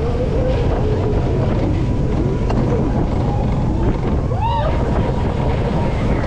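Roller coaster ride in motion: wind rushing over the microphone with the train running on the track, a steady loud rush. Riders' voices show through faintly, with a short high whoop that rises and falls about four and a half seconds in.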